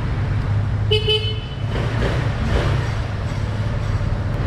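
Kymco Like 150i scooter's single-cylinder engine running with a steady low rumble, and a short horn beep about a second in.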